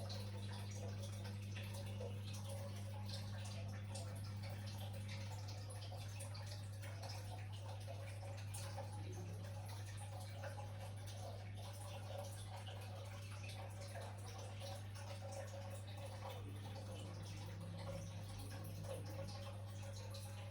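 Faint small wet clicks and drips of slime being squeezed and handled, over a steady low electrical hum.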